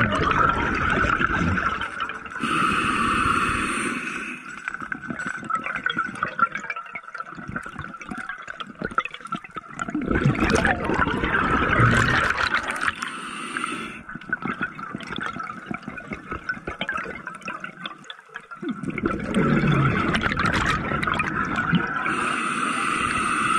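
Scuba diver breathing through a regulator: a hiss on each inhalation and a rush of exhaled bubbles, about every nine to ten seconds, three breaths in all.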